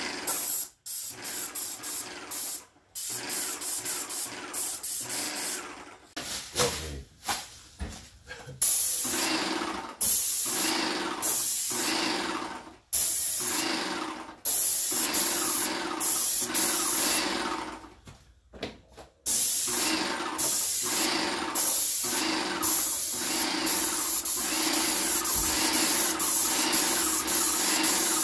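Airless paint sprayer gun hissing as it sprays, in repeated stretches that stop sharply for brief gaps between strokes as the trigger is released.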